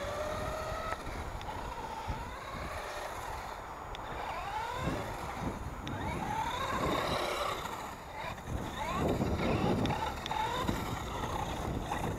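Brushed electric motor of a 1/10-scale 4WD RC truck whining, its pitch rising and falling over and over as the throttle is worked, over a steady low rumble.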